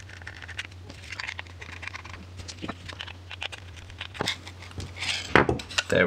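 Small screwdriver backing screws out of an aluminium card wallet while loose screws and wallet parts are handled on a wooden table: a quick jumble of small clicks, scrapes and rustles, with louder knocks near the end as parts are set down.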